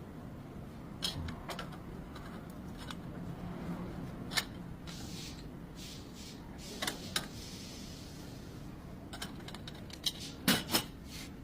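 Scattered sharp clicks and knocks of hand tools handling metal parts, irregularly spaced, with a loud cluster of three about ten seconds in.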